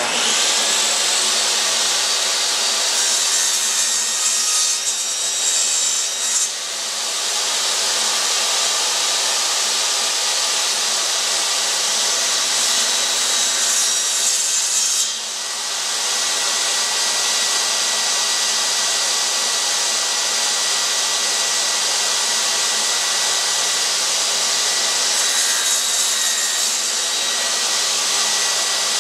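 Table saw switched on right at the start and running steadily, its blade crosscutting a whiskey barrel stave into pen blanks on a crosscut sled; the sound changes briefly a few times as the blade passes through the wood.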